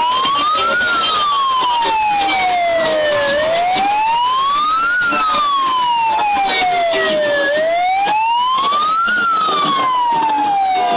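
Siren wailing, its pitch slowly rising and falling and peaking three times, about every four seconds.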